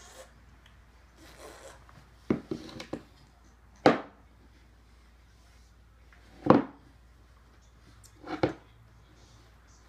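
Claw hammer knocking wooden dowels into the edge of a particleboard bookcase panel: a quick cluster of taps about two seconds in, then single hard blows a couple of seconds apart.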